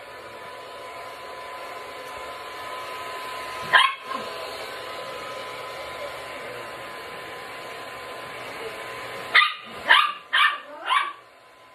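Handheld hair dryer running with a steady blowing hiss and a faint whine. A dog barks once about four seconds in, then four quick barks come near the end, and the dryer switches off just after them.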